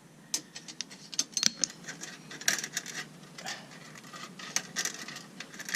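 Irregular metal clicks and scrapes as 3/16-inch stainless steel brake line tubing is worked in a hand bender and handled.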